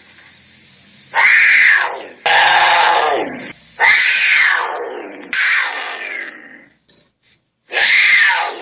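Tiger snarling: five loud, separate snarls, each about a second long and dropping in pitch as it dies away.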